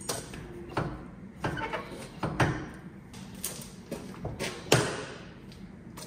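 About a dozen irregular knocks, clunks and clicks from handling things in and around an old Toyota RAV4's cabin and door. The loudest is a door-like clunk a little before the end, which rings on briefly.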